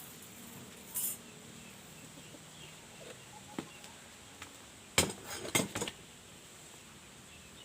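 Hard objects clinking and knocking against each other: a couple of single clinks, then a quick cluster of several sharper ones about five seconds in.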